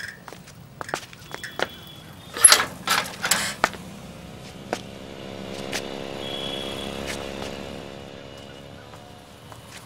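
Bicycle clicking and knocking a few times as it is handled and parked, loudest about two and a half seconds in. Then a motor vehicle's engine hum swells and fades as it passes by.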